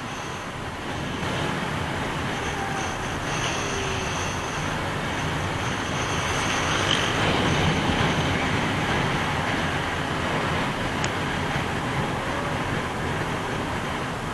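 Honda Click 125i scooter on the move: its engine running steadily under wind and road noise.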